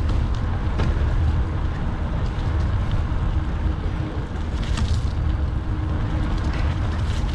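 Wind buffeting the microphone of a handlebar-mounted camera on a moving bicycle, a loud steady low rumble, with a few light clicks about five seconds in and near the end.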